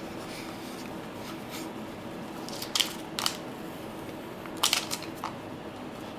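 A tennis ball pressed and rolled over a textured adhesive traction pad, making a few short scratchy rubbing sounds in the middle and near the end, over a steady low hum.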